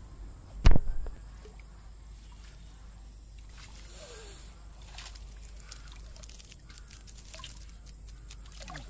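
Soft sloshing and dripping of shallow water as a china duari net trap is lifted and shaken out, with one loud thump about a second in and a thin steady high tone behind.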